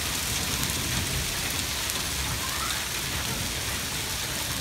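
Hailstorm with heavy rain: small hailstones and rain striking a wet paved road and lawn, a steady dense hiss of many fine clicks.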